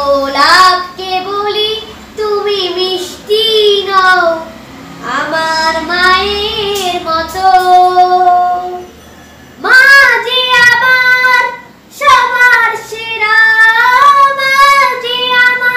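A boy singing a Bengali song in long, held phrases, with short breaks between lines about nine and twelve seconds in.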